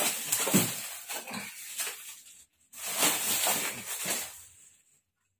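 Plastic bag wrapping rustling and crinkling as a large package is handled and unwrapped, in two stretches with a short pause between, stopping near the end.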